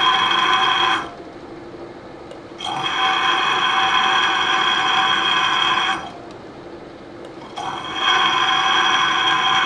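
Milling machine drilling out a broken stud: the bit squeals loudly and steadily while it cuts, in three spells of a few seconds each. Between the spells the spindle keeps running more quietly.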